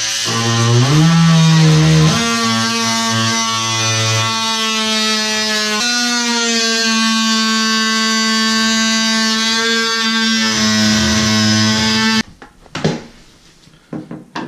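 Cordless oscillating multi-tool cutting through a fiberglass shower surround, giving a loud, steady, pitched buzz that climbs in pitch over the first couple of seconds. It cuts off abruptly about twelve seconds in, followed by a few sharp knocks.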